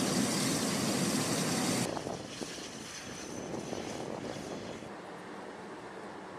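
Burning gas jetting from a tank fire-training prop: a loud, steady roaring rush that cuts off suddenly about two seconds in. A quieter rushing of flame and hose spray follows.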